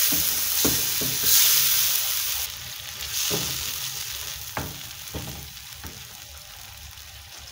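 Blended tomatoes and spices sizzling in a frying pan while a wooden spoon stirs and scrapes through them, with a few knocks of the spoon against the pan. The sizzle drops about two and a half seconds in, and the stirring stops a couple of seconds later, leaving a quieter steady sizzle.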